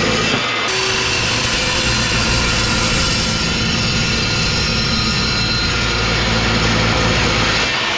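Diesel shop heater running steadily, a continuous engine-like rush of fan and burner noise.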